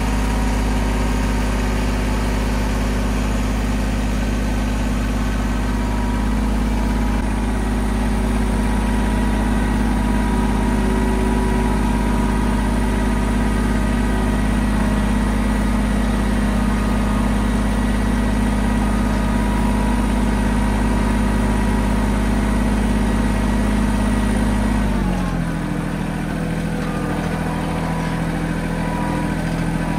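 Mahindra 1626 compact tractor's diesel engine running steadily, then dropping to a lower engine speed about 25 seconds in.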